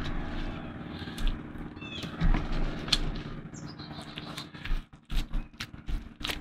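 Gloved hands smearing and pressing papaya puree onto a raw steak on a plastic cutting board: soft wet squishing with scattered small clicks and taps over a steady low hum. A short high chirping call comes about two seconds in.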